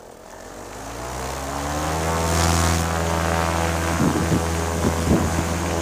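Paramotor's two-stroke Simonini 122 engine and propeller revving up, rising in pitch over about two seconds and then holding a steady high throttle. A few low thumps come near the end.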